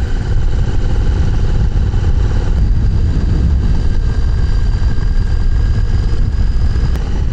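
Motorcycle running at a steady cruise, its engine note mixed with dense wind and road rumble from riding at speed.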